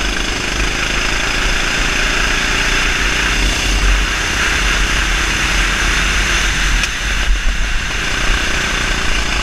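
A Sodi RT8 rental kart's 390cc single-cylinder four-stroke engine running hard on a flying lap. A steady rush of wind buffets the onboard camera's microphone over it.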